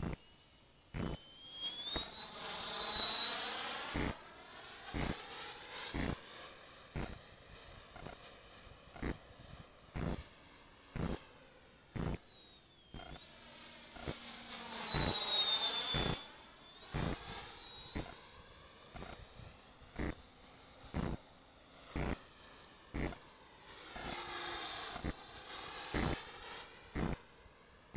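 Large 3D-printed RC model L-39 jet flying past three times, its high engine whine swelling and fading with each pass: near the start, midway and near the end. Sharp clicks about once a second run under it, a recording fault the uploader puts down to a dying camera.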